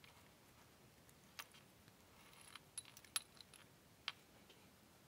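A handful of faint, irregular clicks and light clinks of small metal chain links and jewellery pliers as an opened link is hooked onto a chain, with a brief high metallic ring among the middle clicks.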